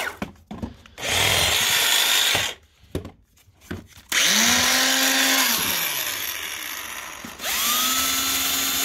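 Bosch 14.4 V cordless power tools run in short bursts on freshly fitted lithium-ion packs. A motor whirs for about a second and a half. Then the Bosch GSR 14.4 VE-2 cordless drill spins up and runs for about three seconds, its speed dropping before it stops, and spins up again near the end.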